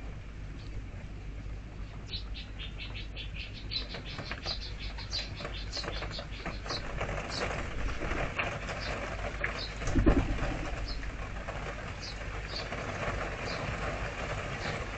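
A rock pigeon flapping its wings, loudest about two-thirds of the way through, while a small bird calls in a quick run of high chirps early on and single chirps after, over a steady wash of rain.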